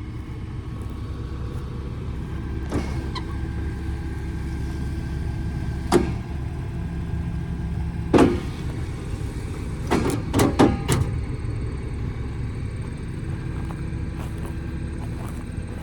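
Fendt tractor and Krone BigPack 890 large square baler running in the field, a steady low drone. A few sharp, loud knocks stand out about six, eight and ten to eleven seconds in.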